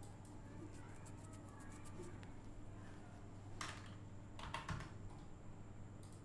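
Faint clicking of a computer keyboard and mouse: a quick run of light clicks, then two louder clusters of clicks around the middle, over a steady low hum.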